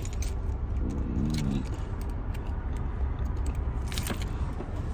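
Steady low rumble inside a car, with scattered small clicks and rustles, and a brief murmured voice about a second in.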